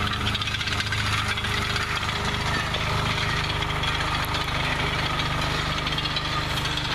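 Engine of a homemade tracked tank-bike running steadily as the machine drives, with a fast mechanical rattle over it.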